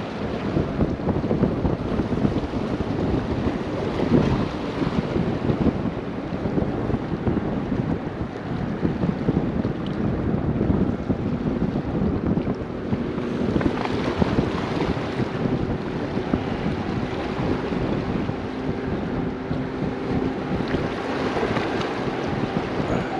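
Wind buffeting the microphone over choppy water washing against the rocks, with swells of noise as gusts or waves pass. A faint steady drone joins in about halfway through.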